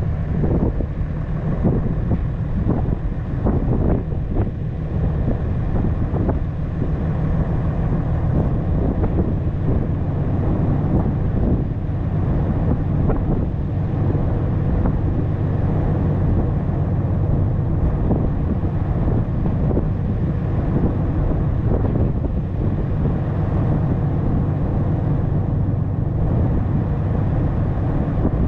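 Dodge Ram 3500 pickup driving on a dirt road: a steady low rumble of engine and tyres, with wind buffeting the microphone. There are uneven jolts over the first several seconds.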